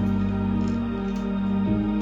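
Background music: soft, ambient new-age style with sustained chords, one chord change near the end.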